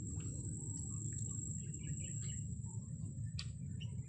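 Outdoor pond-side ambience: a steady high-pitched insect trill runs throughout, with scattered short bird chirps and a low steady rumble underneath. A single sharp tick comes about three and a half seconds in.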